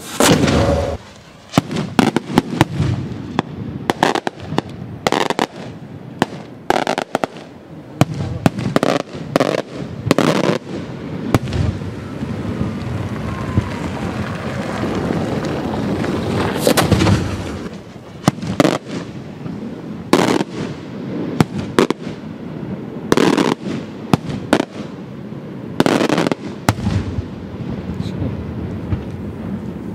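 Maltese beraq firework shells bursting: a run of sharp bangs and crackling reports, the loudest coming every few seconds, the first right at the start.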